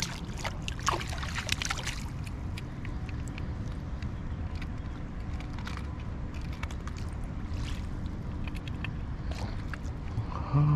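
Water splashing and sloshing in the first couple of seconds as a small trout thrashes in a landing net held in the creek, then a steady low rush with occasional small splashes.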